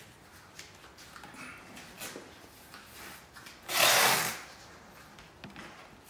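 Light handling knocks on a hive box, then one loud rasping strip of masking tape pulled off the roll, about half a second long, about four seconds in.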